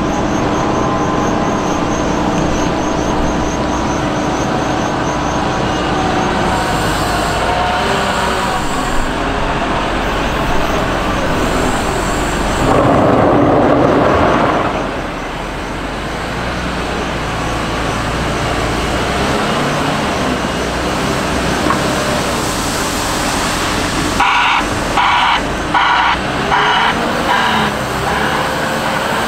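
Hidromek HMK 640 wheel loader's diesel engine running as the machine works, with a louder burst of noise lasting about two seconds midway. Near the end a reversing alarm beeps about six times in a regular rhythm.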